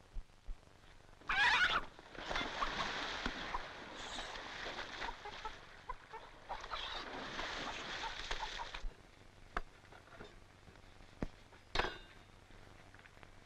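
A chicken squawks briefly, then water splashes for about six seconds as a man wades through a lake after it. A few sharp clicks come near the end.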